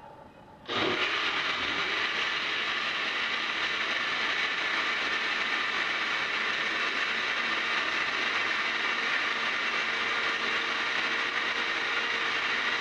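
Countertop blender starting about a second in and then running steadily, blending a thin liquid batter.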